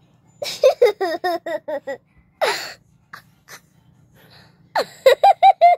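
Young child laughing in two runs of quick, high-pitched 'ha-ha-ha' bursts, with a gasping breath between them.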